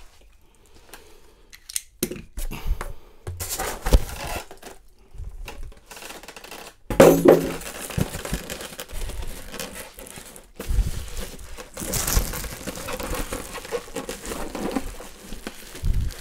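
Unpacking noises: polystyrene foam packing rubbing and creaking and a plastic bag crinkling as a heavy machine is worked out of its foam shell, with irregular knocks and bumps, the loudest about four and seven seconds in.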